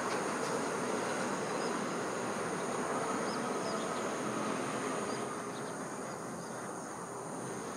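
Steady high-pitched chirring of insects, over the fading rumble of a train that has just passed and is moving away; the rumble drops off about five seconds in.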